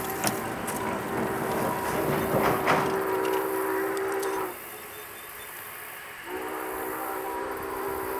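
Union Pacific 844 steam locomotive's chime whistle, heard from a distance, sounding several notes at once in two long blasts. The first cuts off about four and a half seconds in, and the second starts about two seconds later.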